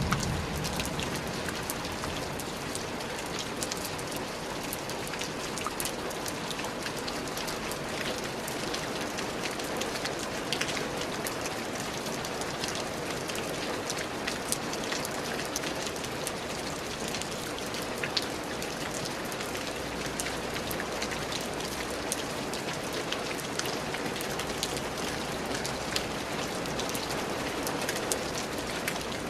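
Steady rain falling, with many distinct raindrop hits sounding over an even hiss.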